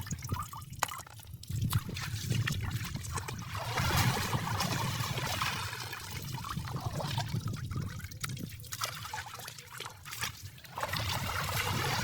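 Shallow water trickling and sloshing, with scattered small splashes and clicks.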